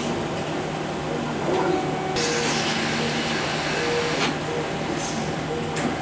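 Steady mechanical hum with a noisy background, scattered short tones and a few sharp clicks, the sharpest near the end.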